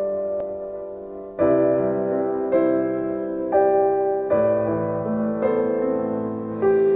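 Background piano music: slow chords struck about once a second, each left to ring.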